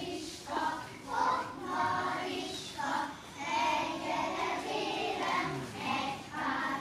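A group of young kindergarten children singing a song together.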